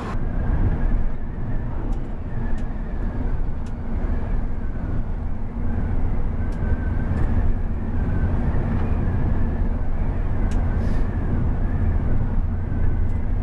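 Mercedes-Benz OH 1830 coach driving, heard from inside the cabin: a steady low rumble of engine and road, with a few light ticks.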